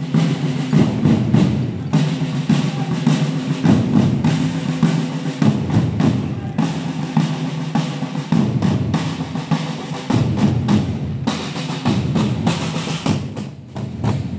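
Drums of a historical reenactment drum corps playing a steady rhythmic march, with dense sharp strokes throughout.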